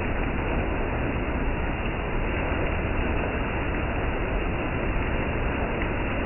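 Steady rain falling on tiled paving and a parked car: an even, unbroken hiss with a low rumble underneath.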